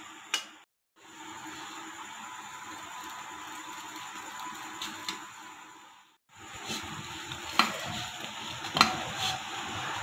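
Buttered bread slices sizzling steadily as they toast in a non-stick frying pan. A little past halfway the sound cuts out briefly, then a few sharp clicks follow as a spatula touches the pan and turns the slices.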